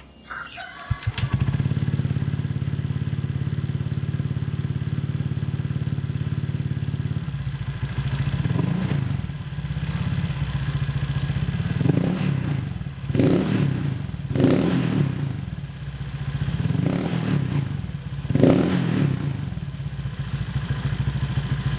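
Honda Vario 125 scooter's single-cylinder four-stroke engine on a cheap copy CMS aftermarket exhaust, starting about a second in and idling steadily, then revved in about six short throttle blips. When the throttle is let off it has a hollow sound like a bucket or PVC pipe, which the rider puts down to the header joint that has just been patched for a leak.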